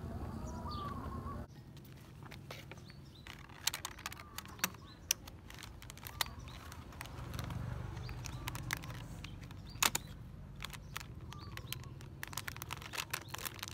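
Crinkly plastic snack bags crackling and rustling as they are handled and pressed down onto a plastic toy dump truck, with scattered sharp crackles. Birds chirp in the first second or so.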